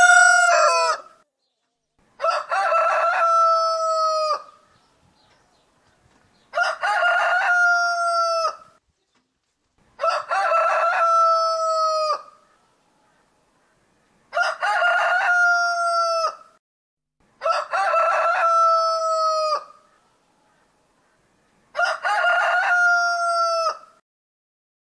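Rooster crowing again and again: the end of one crow, then six full cock-a-doodle-doos, each about two seconds long, with a pause of a second or two between them.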